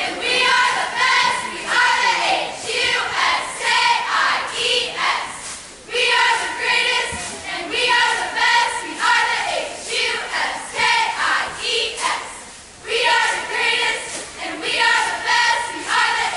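A large group of cheerleaders shouting a cheer in unison, in rhythmic phrases that break off briefly about every six seconds.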